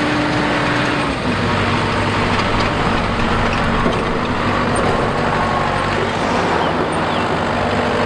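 Diesel engine of a tracked rice combine harvester running steadily as the machine drives and turns; its pitch drops slightly about a second in and a deeper engine note comes up.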